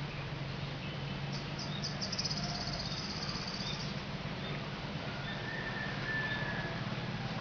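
A bird trilling in the background: a few separate high notes quickening into a fast, high trill lasting about two and a half seconds, then faint thin whistles near the end, over a steady hiss and low hum.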